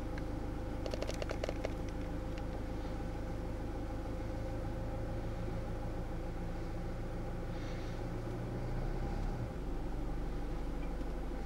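Car engine idling steadily, with a short burst of clicks about a second in and a brief waver in the engine's hum near the end.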